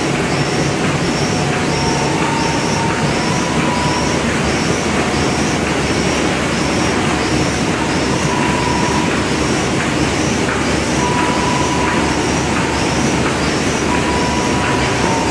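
Automatic thermal film laminating machine running steadily: a continuous mechanical din with a light, regular tick about twice a second, and brief thin whines that come and go.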